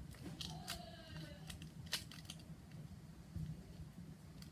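Faint scattered clicks and taps of a plastic TV remote control being handled and fiddled with.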